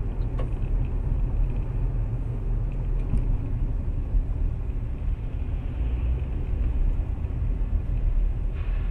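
Steady low rumble of a moving car's engine and tyres on the road, picked up by a dashcam inside the cabin.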